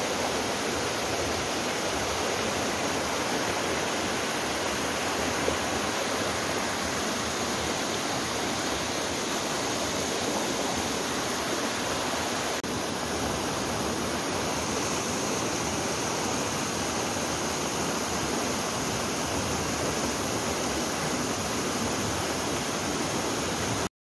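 A shallow rocky creek running over stones, a steady, even rush of water.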